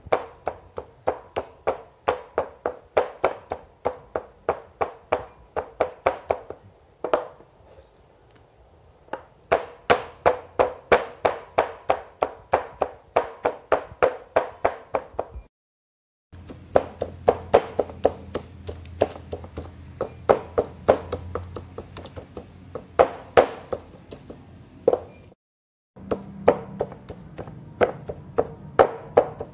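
Chicken breast fillet being pounded flat on a wooden cutting board with a stone cobek in place of a meat mallet. It gives rapid dull knocks, about three a second, with a short pause about eight seconds in and two brief silences later on.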